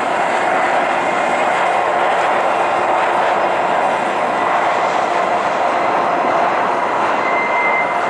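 Union Pacific double-stack intermodal train's container cars rolling steadily along the rails, an even rumble of wheels and cars, with a thin high squeal that grows stronger near the end.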